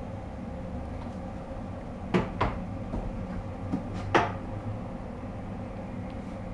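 A few sharp knocks: two close together a little over two seconds in and a louder one about four seconds in, over a steady low hum.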